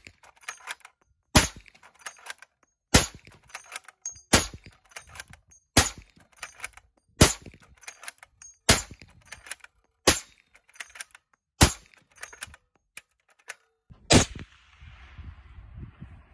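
Suppressed large-calibre rifle firing a steady string of eight shots, about one every one and a half seconds, each followed by fainter cracks and knocks. After a short gap, one more shot comes about fourteen seconds in, followed by a low rumbling noise.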